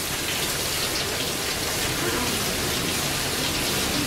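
Several shower heads spraying water steadily onto bodies and a tiled floor, with a woman singing softly underneath.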